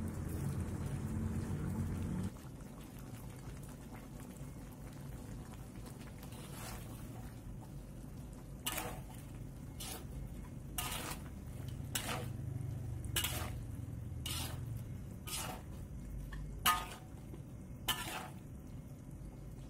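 Chicken gravy simmering in a steel wok, then, from about nine seconds in, a metal spatula stirring it, knocking and scraping against the wok about once a second. A low hum cuts off about two seconds in.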